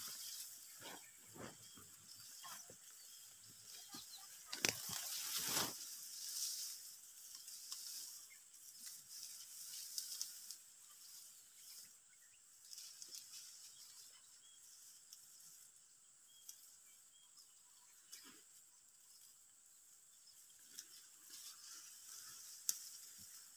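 Outdoor ambience in a ripe hill-rice field: a steady high hiss with irregular rustling, and a louder burst of rustling about five seconds in.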